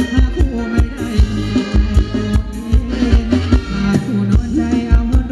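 Live Thai ramwong band music with a steady drum beat and a melody over it.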